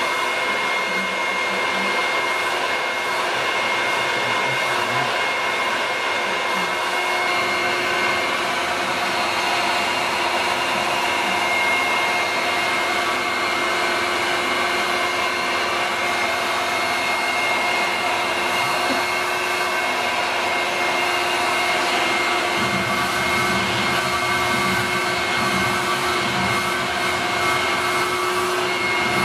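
Vacuum cleaner running steadily, a continuous rush of air with a high whine from the motor. A lower, uneven rumble grows stronger about three quarters of the way through.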